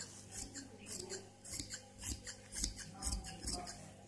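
Tailoring scissors cutting through fabric in a series of snips, about two to three a second, stopping shortly before the end.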